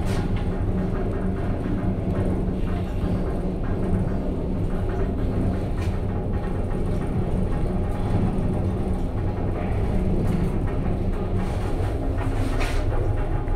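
Shcherbinsky Lift Plant (ShchLZ) 630 kg passenger elevator riding up the shaft: a steady low hum and rumble from the moving car, with a few faint clicks. Near the end the hum's pitch shifts lower.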